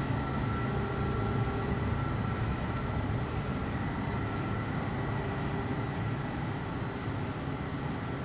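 Steady drone of running machinery: a low hum with a few faint, steady whining tones above it.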